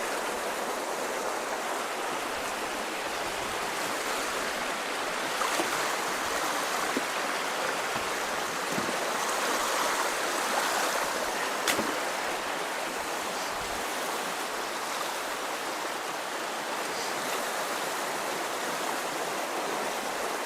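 Swift creek water rushing steadily through and around the culverts of a low-water bridge, with a few faint knocks, one sharper about twelve seconds in.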